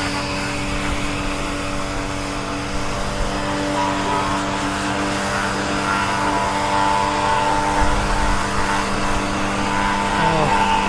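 Karcher K1 electric pressure washer running steadily, a constant motor hum over the hiss of the water jet.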